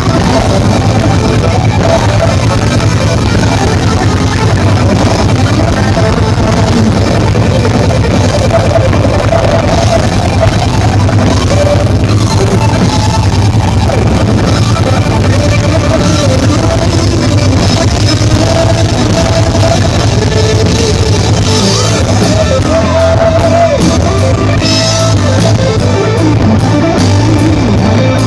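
Gospel rock band playing live and loud: electric guitars and drum kit over a heavy bass.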